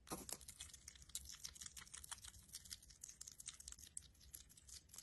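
A pet African pygmy hedgehog chewing a mealworm: faint, quick, irregular crunchy clicks, several a second.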